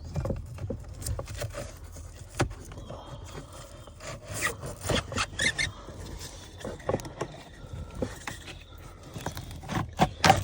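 Old cabin air filter being worked out of its plastic housing behind the glovebox: the pleated filter scrapes and rubs against the plastic, with irregular clicks and knocks as it is handled.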